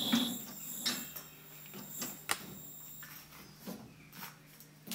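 Light metal clicks and knocks as a steel bandsaw blade is handled into the clamps of a Wood-Mizer BMS250 blade setter, with one sharp click a little past two seconds in.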